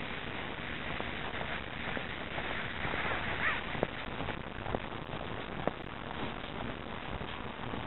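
Steady rushing noise of wind and movement on a handheld or body-worn camera's microphone while walking, with three sharp clicks about a second apart in the middle.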